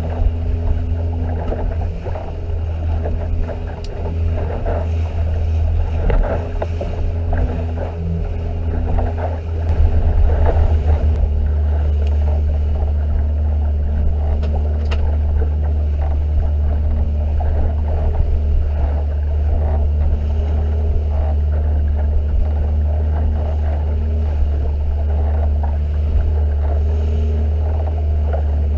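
Outboard motor running steadily under way, a deep continuous hum with the rush and splash of the boat's wake over it; it runs a little louder from about ten seconds in.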